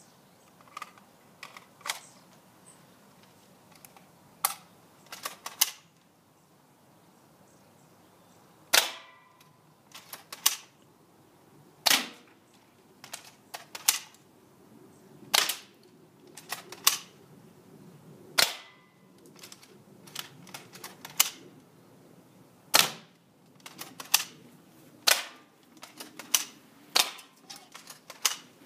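A&K SVD Dragunov airsoft rifle firing single shots, each a sharp crack, irregularly spaced one to two seconds apart, some followed by smaller clicks.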